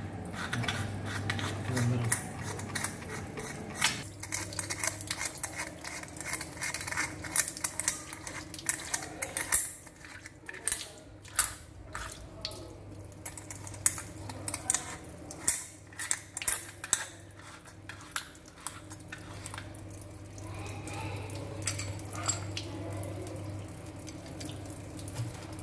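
Metal clinks and scrapes from a chrome wall connector and its cover flange being handled and fitted, many sharp clicks through the middle. Water runs from the open wall inlet and splashes down the tiles.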